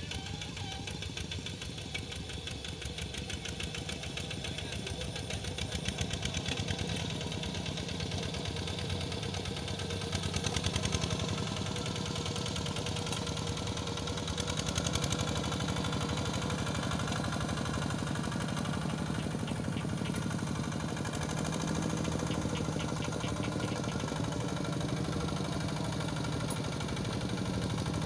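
Two-wheel hand tractor's single-cylinder diesel engine running steadily while it ploughs a wet rice paddy, with a short swell about ten seconds in.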